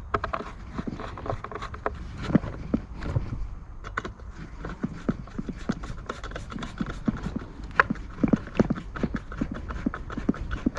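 Irregular light clicks and knocks, several a second, from handling the plastic housing of a Homelite leaf blower and fitting its T25 Torx screws.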